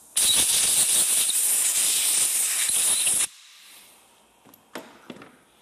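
Compressed-air blow gun blowing out a spark plug: a loud, steady hiss of air for about three seconds that cuts off sharply, followed by a few faint clicks.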